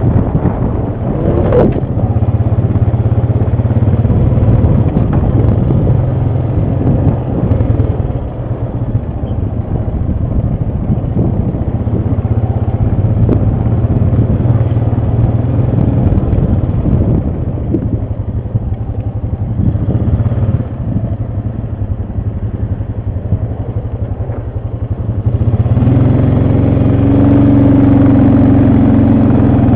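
ATV engine running under way, with knocks and rattles from the machine over rough ground. About 26 seconds in the engine gets louder and higher in pitch, as if accelerating, and holds there.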